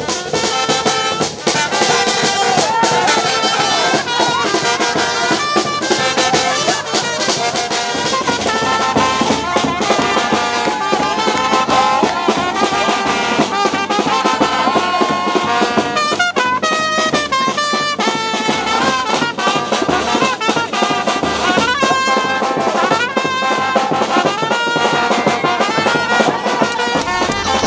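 Lively dance music led by brass instruments over a steady percussive beat.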